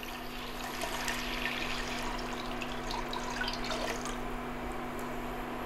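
Vegetable broth poured in a steady stream from a glass jug into a large stainless-steel stockpot.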